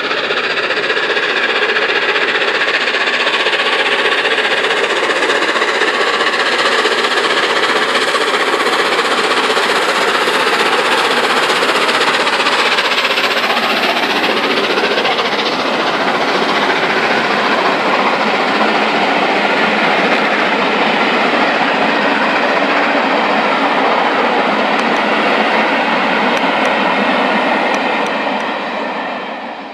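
Peppercorn class A1 Pacific steam locomotive Tornado and its train of coaches passing at speed: a loud, steady rush of train noise on the rails that dies away near the end.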